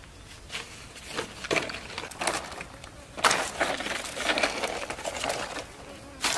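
Irregular crackling and rustling as crisp roasted meat is handled on fresh palm leaves and pulled off a bamboo skewer, with sharper crunches growing denser from about three seconds in as it is cut with a knife.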